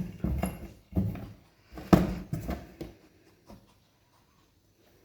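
Kittens scrabbling and bumping about in a cardboard box: a quick run of scratches and knocks on the cardboard for about three seconds, then it goes quiet.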